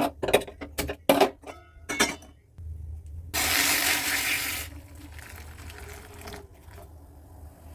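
Kitchen clatter of a pan and utensils, several sharp knocks in quick succession, then water running for about a second, as when a pan is filled for cooking noodles.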